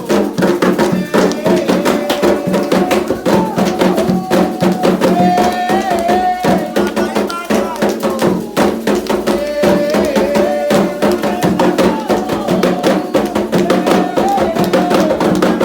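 Candomblé ritual drumming: hand drums beating a fast, driving rhythm for Oxumarê, with voices singing a chant over it that rises and falls, dropping out in places.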